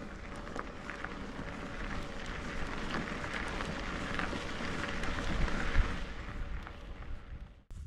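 Bicycle tyres rolling over a gravel road: a steady crunching noise with scattered small clicks and a low rumble, cutting off abruptly near the end.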